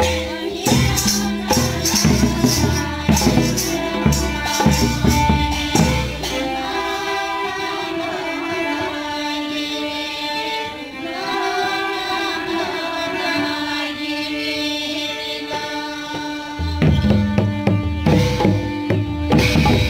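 Santali folk dance music: a woman singing into a microphone over harmonium and barrel hand drums. The drums drop out about six seconds in, leaving voice and harmonium, and come back in near the end.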